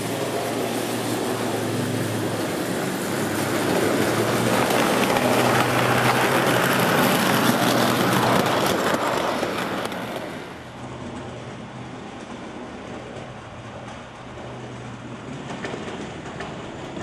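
O scale model tram running on its track: a steady motor hum with the rolling noise of wheels on rails, growing louder as it passes close by around the middle, then dropping to a quieter running sound.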